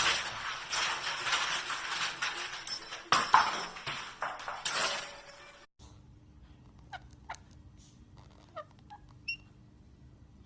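A loud, dense stretch with music cuts off suddenly about six seconds in. After it a pet parrot gives a few short, high chirps over a steady low hum.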